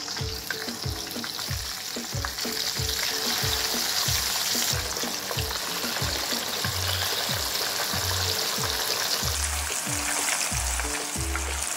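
Whole fish frying in a wok of hot oil: a loud, steady sizzle as the fish are slid in one after another, swelling once the pan is full.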